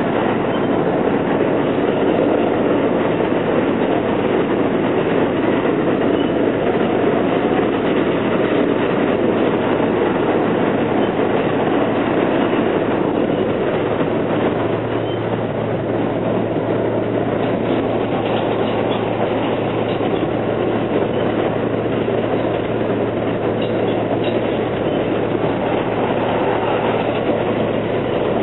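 R160B subway car running at speed, heard from inside the car: a steady rumble of wheels on rail. A low steady hum sets in about halfway through.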